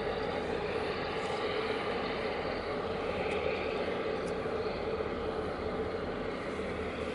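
Steady engine drone with a constant mid-pitched hum, unchanging throughout.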